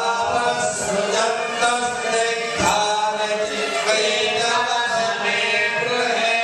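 Voices chanting in unison, a continuous, sustained devotional chant with slowly shifting held notes.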